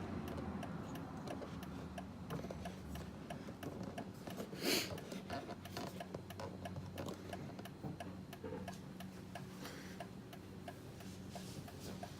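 Turn signal of a 2005 Mercedes-Benz SL500 ticking in an even tick-tock of about three clicks a second while the newly fitted mirror blinker is tested, over a steady low hum. A brief hissing scrape, the loudest sound, comes a little before halfway.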